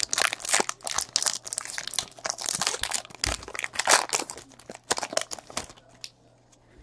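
Plastic wrapper of a trading card pack crinkling as it is torn open and the cards are pulled out, a quick run of crackles that dies away about a second before the end.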